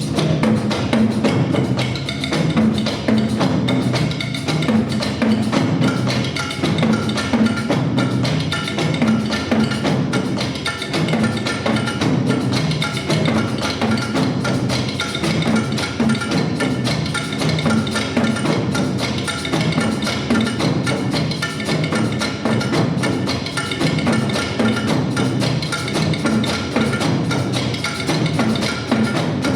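Nanta ensemble drumming: Korean drums beaten with wooden sticks in a fast, dense, unbroken stream of strokes.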